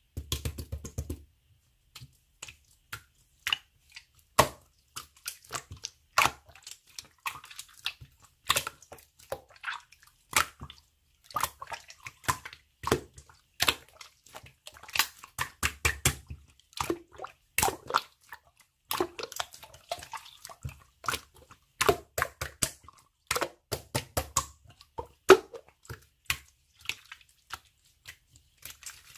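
Slime being squished and kneaded by hand, making an irregular run of sharp clicks and pops, some louder than others.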